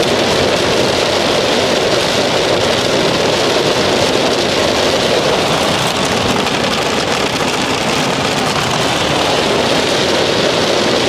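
Hail pelting the car's roof and windshield in a dense, steady patter, mixed with tyre and road noise on the hail-covered highway, heard from inside the moving car.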